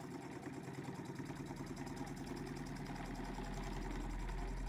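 Reed-switched pulse motor running: a rapid, even mechanical chatter with a low hum underneath, growing slowly louder as the rotor picks up speed. It starts just after a single click.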